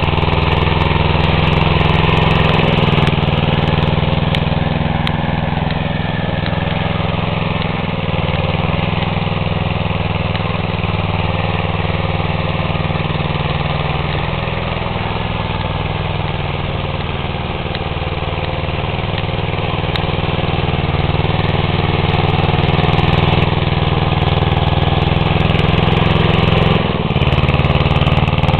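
Small engine of a home-built four-wheel-drive garden tractor running steadily as the tractor pushes snow with a front blade.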